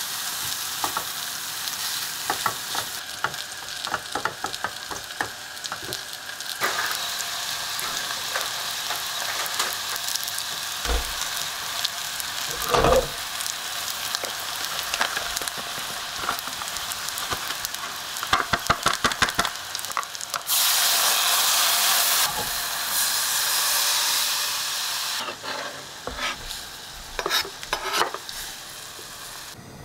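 Food sizzling as it is stir-fried in a pan, first shredded dried squid, then sliced onions, with chopsticks and a spatula clicking and scraping against the pan. The sizzling gets louder for a few seconds about two-thirds of the way through.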